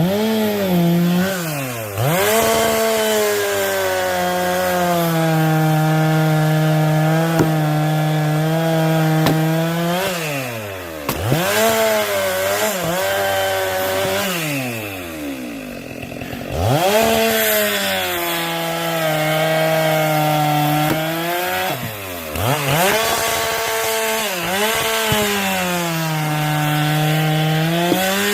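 Two-stroke chainsaw running at high revs and cutting firewood; its pitch sags and recovers again and again as the chain bites into the wood and comes free.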